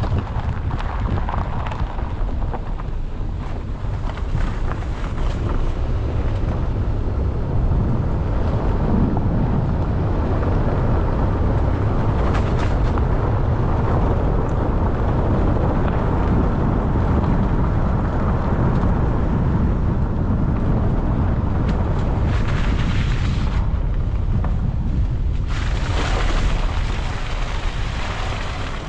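Heavy farm harvest machinery running steadily, with wind rumbling on the microphone. A brighter hissing rush swells twice near the end.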